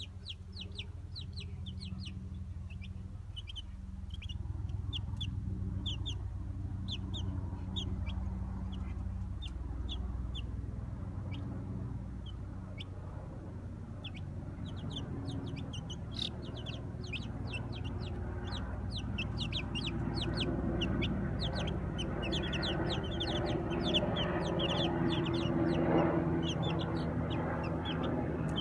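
Baby chicks peeping while they peck at live mealworms: a quick, continuous run of short, high cheeps, several a second. A steady low rumble lies underneath.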